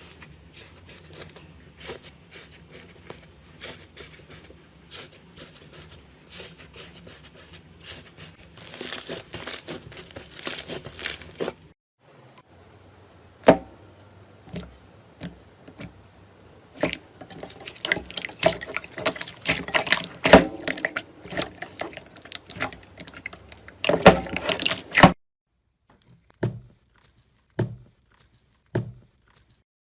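Slime being pressed, poked and stretched by hand, giving many sticky clicks, crackles and pops. The clips change about twelve seconds in and again near the end, which holds only a few scattered pops.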